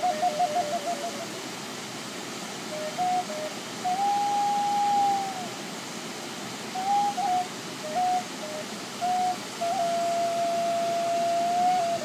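Native American flute tuned in G# playing a slow melody: quick fluttering notes at the start, a long note about four seconds in that bends down as it ends, short notes with pauses between, and a long held note near the end. The steady rush of a waterfall runs underneath.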